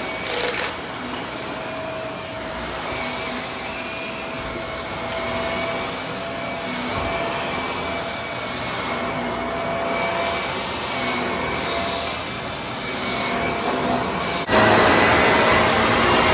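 Shark Lift-Away upright vacuum cleaner running on a rug, a steady motor hum with a thin whine over it. Near the end it suddenly gets louder.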